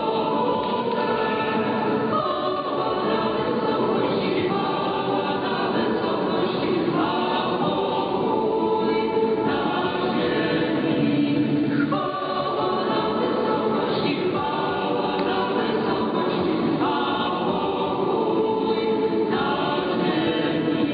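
Choir singing a hymn, heard through an AM longwave radio broadcast, so the sound is narrow and muffled, with nothing above about 5 kHz.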